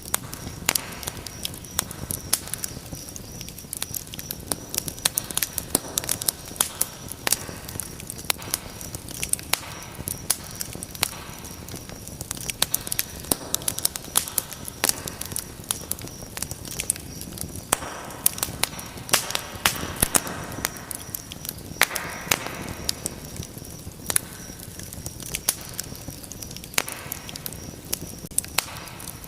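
Wood fire crackling steadily, with frequent sharp pops and snaps over a constant low rustle of flame. There is a brief hiss about three-quarters of the way through.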